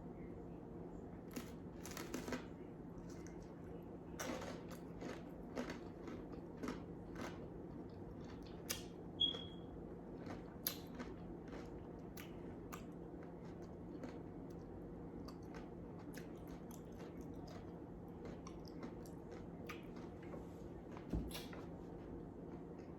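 A person biting into and chewing a cream-cheese-stuffed jalapeño: faint, irregular crunches and mouth clicks, more of them in the first half.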